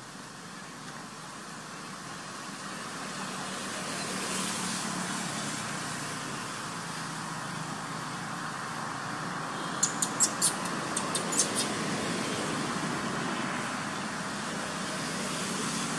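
Steady noise of passing motor traffic that swells over the first few seconds, with a quick run of about eight sharp high clicks around ten seconds in.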